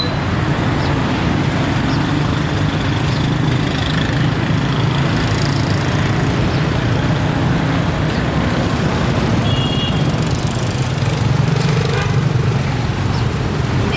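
Steady road traffic noise: motor vehicles running close by, with no break in the din.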